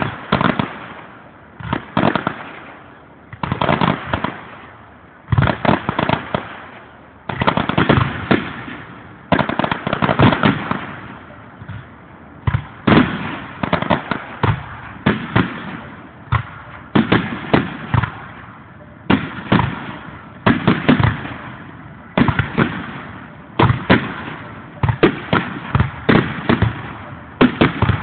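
Fireworks display: aerial shells bursting overhead in a steady series of loud bangs, a new cluster of reports about every one to two seconds, heard through a phone's microphone.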